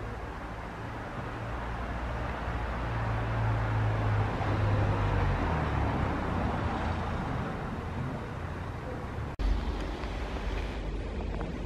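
Diesel locomotive engine running: a low steady hum under a wash of noise that grows louder over the first few seconds, then eases. About nine seconds in the sound breaks off abruptly at a splice, and a similar engine rumble carries on after it.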